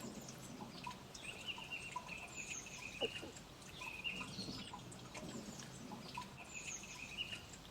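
Small birds chirping in short repeated phrases over faint outdoor background noise, with a single brief click about three seconds in.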